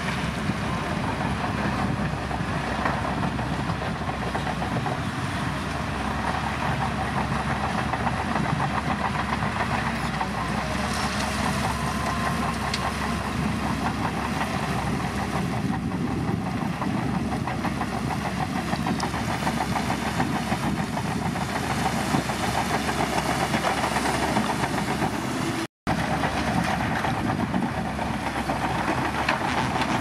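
Shantui crawler bulldozer's diesel engine running under load, with its steel tracks clanking continuously as it pushes crushed rock gravel.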